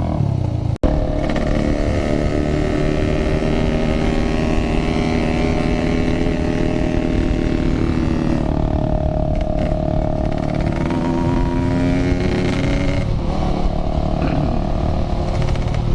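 Yamaha RX-King two-stroke motorcycle engine running under way, its pitch rising and falling as the rider works the throttle and gears. A brief dropout in the sound comes about a second in.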